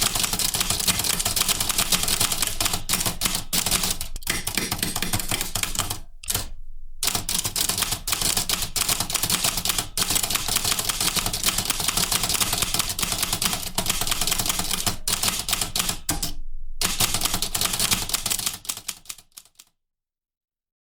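Typewriter typing fast: a dense run of key strikes with two short breaks, the clatter dying away shortly before the end.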